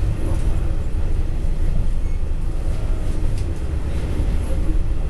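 A moving passenger train heard from inside its carriage: a steady low running rumble of wheels on the rails, with a faint click or two partway through.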